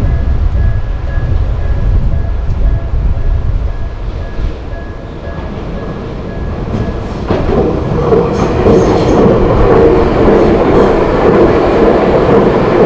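Tokyu Oimachi Line electric train running past a level crossing: a low rumble at first, then about seven seconds in the wheels and cars grow louder in a dense rushing clatter over the rails. A faint, evenly repeating tone through the first half fits the crossing's warning bell.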